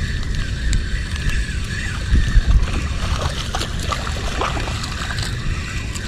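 Spinning reel being cranked steadily to wind in a hooked fish, with a faint whirr and scattered clicks. A heavy low wind rumble on the microphone is the loudest sound.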